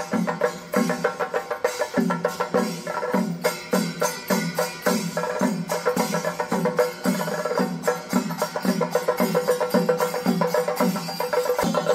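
Kerala temple festival percussion ensemble playing drums in a fast, steady rhythm: dense rapid strokes over a low stroke that repeats about every two-thirds of a second.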